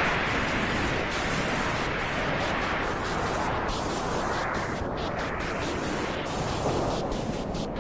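Steady white noise, an even hiss, played to soothe a crying baby through the period of purple crying.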